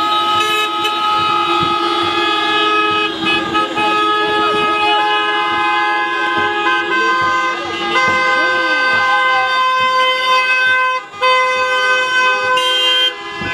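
Several car horns honking together from a line of approaching cars, held long and overlapping at different pitches, with a brief break about eleven seconds in.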